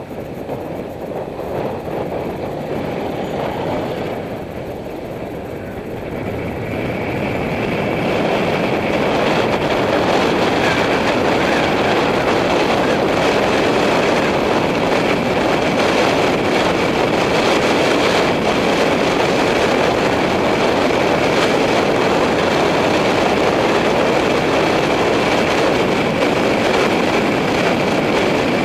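Steady rush of wind on a helmet-mounted camera's microphone, mixed with bicycle tyres rolling on asphalt. It grows louder about seven seconds in and then holds steady.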